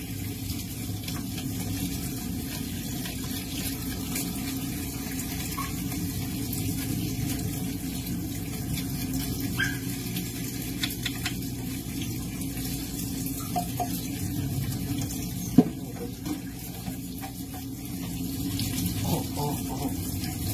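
Tap water running steadily into a stainless steel kitchen sink, splashing over a computer motherboard held under the stream. There are a few small clicks, and one sharp knock about three quarters of the way through.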